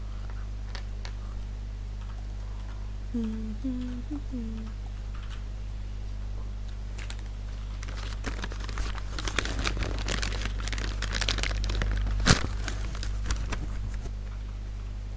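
A thin plastic bag crinkling and rustling as it is handled, for several seconds in the second half, with one sharp click near the end. A steady low hum runs underneath.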